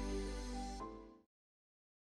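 Gentle background music of sustained chords that fades out just over a second in, followed by dead silence.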